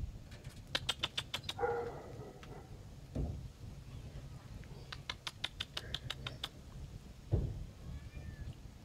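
A litter of kittens at bowls of dry cat food: two runs of rapid clicking, a short kitten meow about two seconds in, and a couple of dull thumps.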